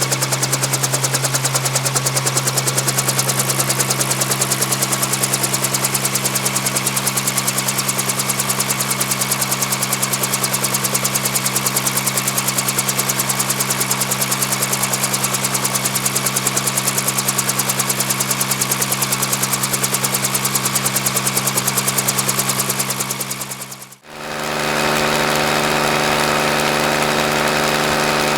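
Helicopter running steadily, its rotor beating fast and evenly over a steady engine hum. About 24 seconds in it cuts out briefly and a second, similar helicopter recording with a slightly different pitch begins.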